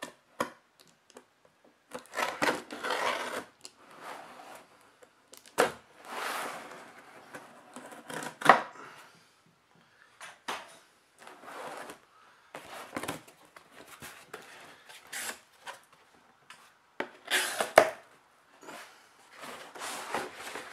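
A pocket knife slitting packing tape on a cardboard shipping box, then the cardboard flaps being pulled open and a boxed figure lifted out: irregular scraping, rustling and tearing with sharp knocks, the loudest about eight and a half and seventeen and a half seconds in.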